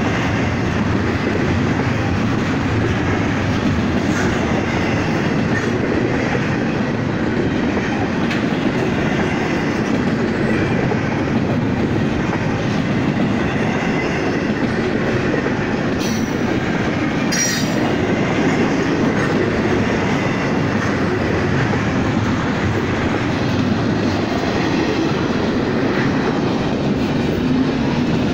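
A CSX double-stack intermodal container train's well cars rolling past, their wheels running on the rails in a steady, unbroken rumble. A couple of short high squeaks come just past halfway.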